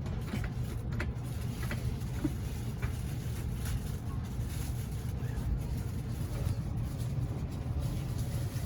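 Cabin noise inside a Kintetsu 80000 series Hinotori limited express car under way: a steady low rumble from the running train, with a few faint clicks and rattles.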